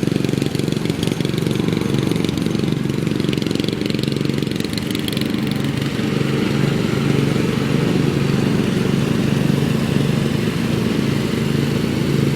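Riding lawn mower engine running steadily, a little louder from about halfway through.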